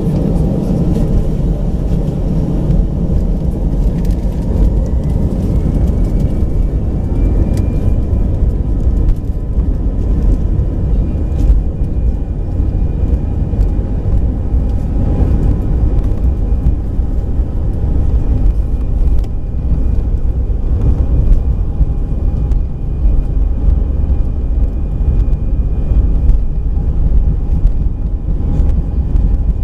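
Airbus A319 jet engines and landing gear heard from the cabin during the take-off roll: a loud, steady rumble, with a thin whine that rises a few seconds in and then holds as the aircraft speeds down the runway.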